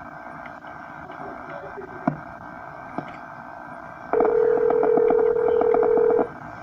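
Hissing telephone line with two clicks, then a loud steady telephone tone of about two seconds that cuts off sharply.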